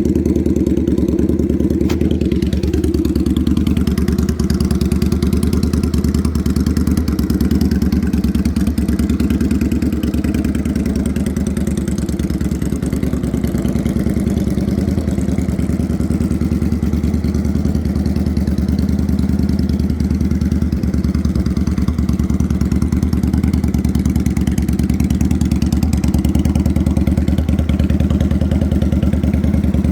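Yamaha XV750 air-cooled V-twin motorcycle engine idling steadily at an even speed, its exhaust pulses running on without revs.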